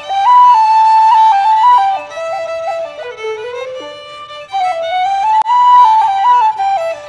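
Violin and wooden flute playing a melody together as a duet, with a quieter, lower phrase in the middle.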